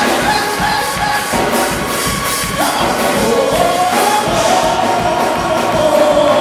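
Live gospel music: a man sings into a microphone over the band, with a steady beat and clapping.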